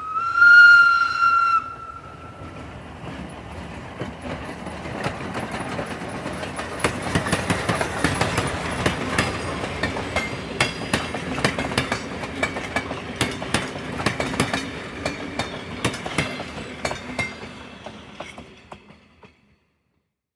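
A steam train's whistle blows one steady note for the first second and a half. The train then rolls past with its wheels clicking over the rail joints (clickety-clack), swelling and then dying away near the end.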